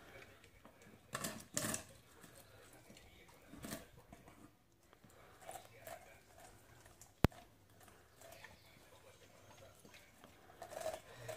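German shorthaired pointer eating from a stainless steel bowl: scattered soft mouthing and chewing sounds and light knocks against the bowl. A single sharp click comes about seven seconds in.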